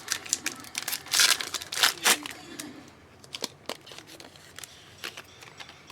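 Trading card pack wrapper crinkling and tearing as it is ripped open, with cards being handled. The rustling is busiest in the first two seconds, then turns sparser and softer.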